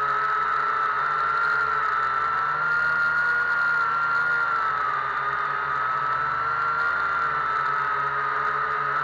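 Quadcopter drone's electric motors and propellers whining steadily, close-up from a camera mounted on the drone itself, while it climbs and hovers; the pitch wavers slightly as the motors adjust.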